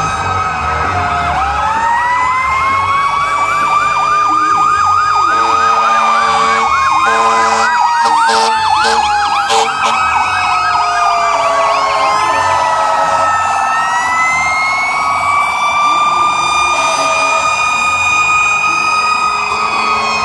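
Several fire-engine sirens sounding together: slow wails gliding up and down, overlapping a fast yelp through the first half. Blasts of truck air horns come in about six to ten seconds in.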